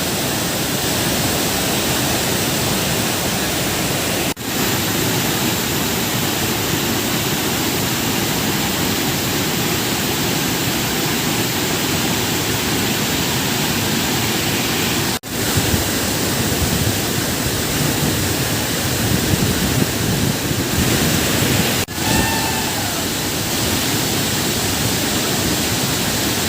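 Waterfall: loud, steady rushing of falling water, cut off briefly three times, about 4, 15 and 22 seconds in.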